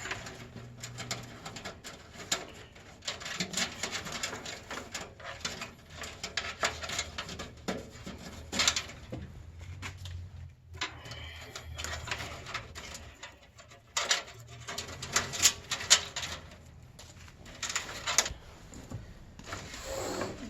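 Irregular clicks, taps and clattering of computer hardware being handled and worked on.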